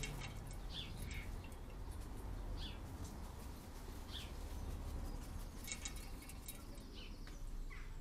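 Short, high bird chirps, each falling slightly in pitch, repeating about every second or so over a low steady rumble.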